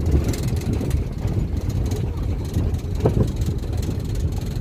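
Vehicle on a rough dirt road, heard from inside: a steady low rumble of engine and road noise.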